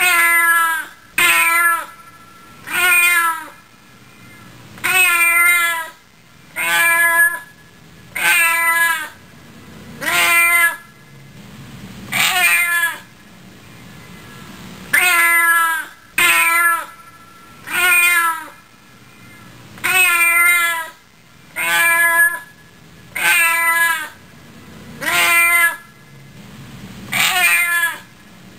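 A domestic cat meowing over and over, about one meow every one and a half to two seconds. Each meow is short, under a second long, with a wavering pitch.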